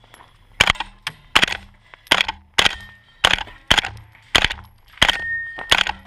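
Spikes Tactical Brown Recluse integrally suppressed 9mm carbine fired in a quick string of single shots, about a dozen, roughly one every half second. Its suppressor has been wetted with water, which makes the shots quieter.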